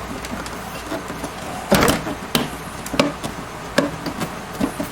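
Side panel of a Dell XPS 9100 desktop case knocking against the chassis as it is aligned on its tabs and slid into place: about five sharp clunks, the loudest nearly two seconds in.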